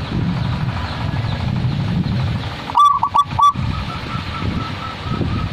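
Zebra dove (perkutut) cooing: one quick phrase of four clear notes about three seconds in, over a steady low background rumble.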